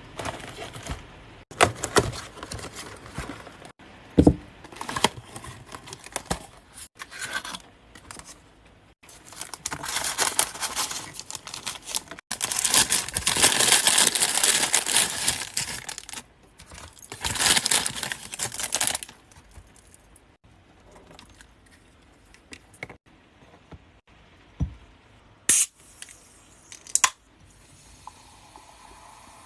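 Packaging being opened by hand: plastic and paper tearing and crinkling in irregular bursts, loudest in a long stretch in the middle, with a few sharp clicks and knocks.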